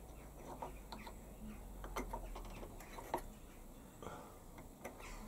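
Faint, irregular clicks and light taps of a small brass part being turned by hand into position in a lathe's compound slide, with one sharper click about three seconds in.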